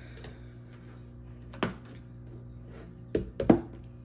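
A small jewelry box being handled and knocked against a tabletop: a sharp knock about a second and a half in, then a quick pair a little past three seconds, the second of them the loudest.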